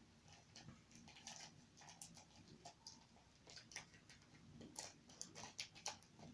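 Near silence with faint, irregular small clicks and light rustles from hands handling slime supplies.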